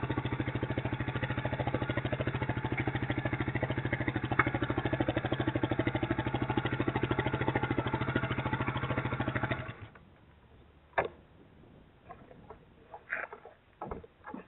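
Motorcycle engine idling with an even, rapid pulse, then cutting out suddenly about ten seconds in as it is switched off. A sharp click and a few small knocks follow in the quiet.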